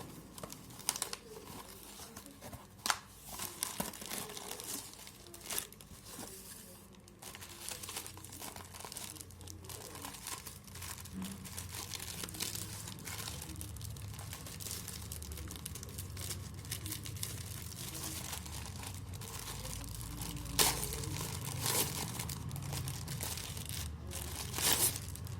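Packaging crinkling and tearing as a study planner is unwrapped by hand, with scattered sharp crackles and a few louder snaps near the start and end.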